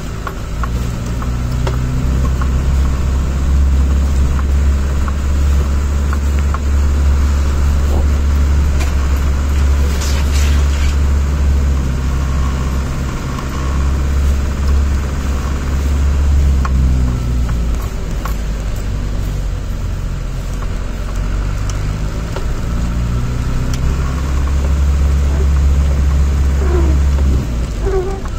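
Land Rover Defender driving slowly on a snowy track, heard from inside the cab: a steady low engine and drivetrain drone that eases and swells a few times and drops off near the end.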